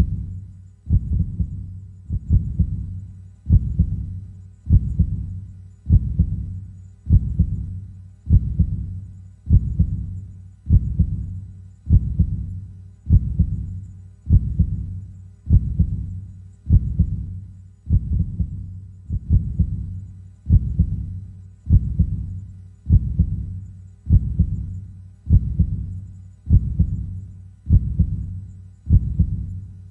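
Heartbeat, slow and steady: a low double thump (lub-dub) about every 1.2 seconds, some 50 beats a minute.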